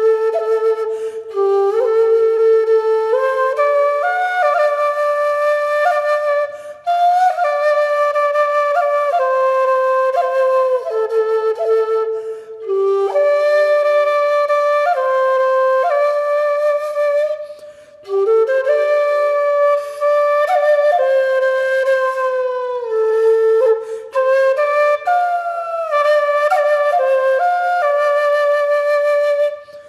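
Meditation music: a solo flute playing a slow melody of held notes, in phrases broken by short pauses every five or six seconds.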